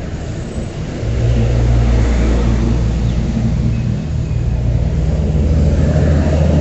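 Large vehicle's engine running close by: a deep, steady drone that grows louder about a second in and holds, over the hiss of traffic on a wet road.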